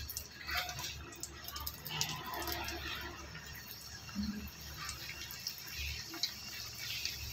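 Potato-stuffed wheat-dough patties deep-frying in hot oil in an iron kadhai: a steady bubbling sizzle with many small, sharp crackles and pops.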